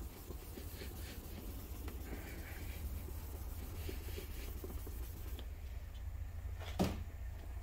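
Faint scratchy rubbing of 1500-grit paper by hand over a gloss black wing mirror cap, flatting dried solvent touch-up paint that fills deep scratches. The rubbing stops about five and a half seconds in, and a single short knock follows near the end.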